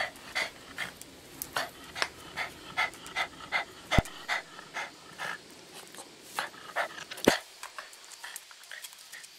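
Papillon dog panting fast and close, about two to three breaths a second, with two sharp knocks about four and seven seconds in; the panting stops soon after the second knock.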